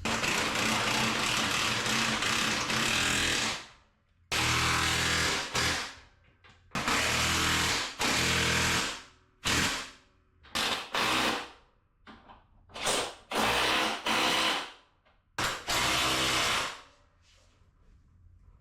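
Power tool, likely a cordless impact wrench, running in about a dozen bursts as it drives the K-member mounting bolts tight. The first burst lasts about three and a half seconds and the rest are shorter, with brief pauses between them as the tool moves from bolt to bolt.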